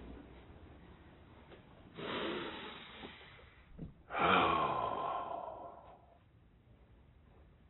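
A man sighing twice: first a breathy exhale, then a longer, louder sigh with voice in it that falls in pitch.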